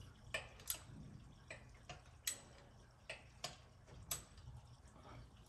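Faint, sharp clicks and small metal knocks at uneven intervals, about ten in all, from a hand tool tightening the mounting of an oil catch can in a car's engine bay.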